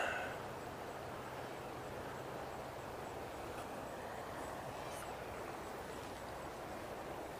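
Steady rush of river water flowing past, an even hiss with no rhythm. A louder sudden sound is dying away right at the start.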